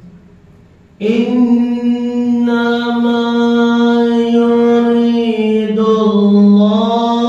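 After about a second's pause, a man's voice chants one long, drawn-out melodic note in Arabic devotional recitation, held at a steady pitch and dipping briefly before rising again near the end.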